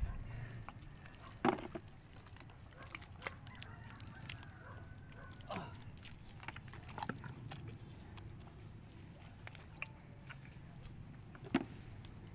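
Wet clicks and squelches of a hand and feet working in soft mangrove mud while digging into burrows, with a few sharper clicks standing out, over a low steady rumble.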